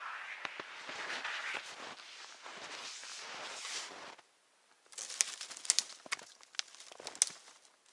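Footsteps in snow with clothing rustle for the first few seconds. After a brief quiet gap, a run of sharp clicks and knocks follows as a wooden trap box on a tree stand is handled.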